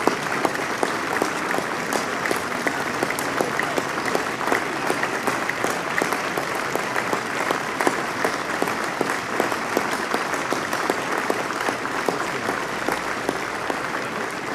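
Sustained applause from a large crowd: dense, steady clapping, easing off slightly near the end.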